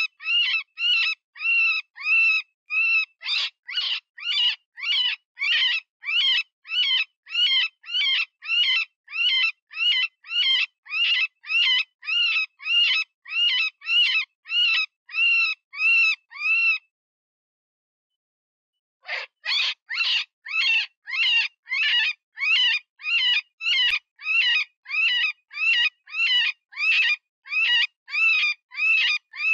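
Cottontail rabbit distress call, the wounded-rabbit squeal used to lure predators: short, high, wavering squeals repeated about twice a second. They break off for about two seconds partway through, then start again.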